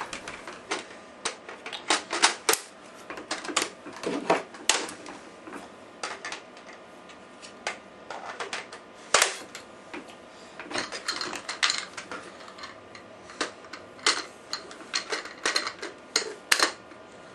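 Hard plastic clicks, snaps and knocks, irregular and scattered throughout, as attachments are fitted onto a Nerf Recon CS-6 toy blaster.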